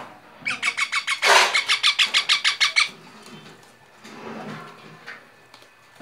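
Young parakeet giving a rapid run of short, shrill calls, about seven a second, with one harsher screech among them, for about two and a half seconds.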